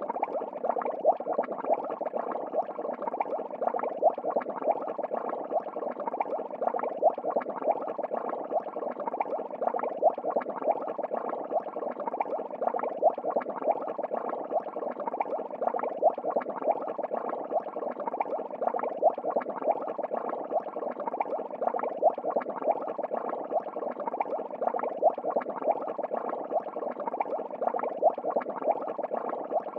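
Steady bubbling and churning of aquarium water, with louder pops about once a second.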